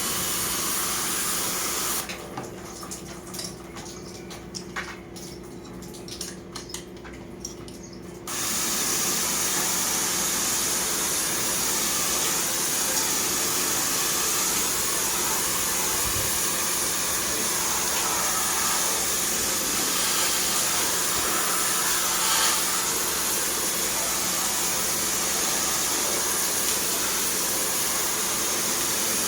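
Steady hiss of a water jet spraying from a sprayer washing an air conditioner, with a steady low hum underneath. The spray cuts out about two seconds in and comes back abruptly about eight seconds in, then runs evenly.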